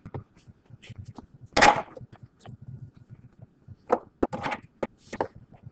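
Scattered light knocks and taps in a classroom, with a short noisy burst about one and a half seconds in and a cluster of taps near the end.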